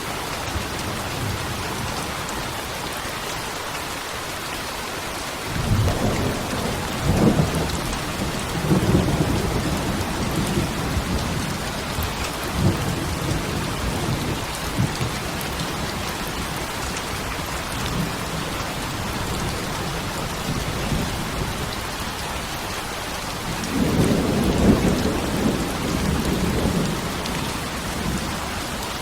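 Steady heavy rain hissing, with rolls of thunder rumbling low: a long roll from about a fifth of the way in, and another strong one near the end.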